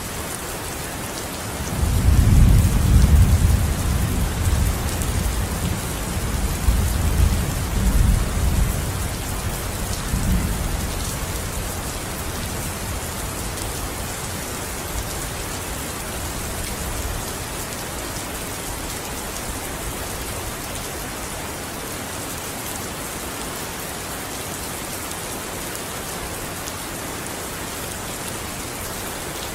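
Steady rain falling, with a long roll of thunder that starts about two seconds in, swells twice and fades out after about ten seconds.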